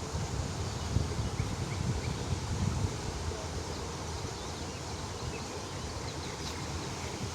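Wind buffeting the microphone outdoors, a steady uneven rumble, with a few faint short chirps above it.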